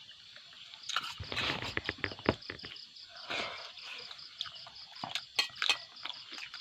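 Insects, crickets by the sound of it, chirping in a steady, fast pulsing rhythm. Louder clicks and rustling break in about a second in and again around five seconds in.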